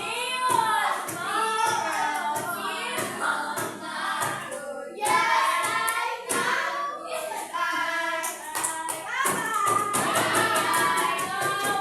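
A group of children singing a song together, with hand claps keeping a steady beat about twice a second.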